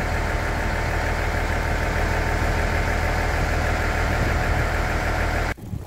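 Diesel railcar engine idling with a steady low drone. It cuts off suddenly near the end.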